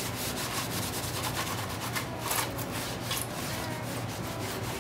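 A rag scrubbing and wiping the inside of a sheet-metal engine oil pan wet with degreaser, a fast scratchy rubbing of cloth on metal.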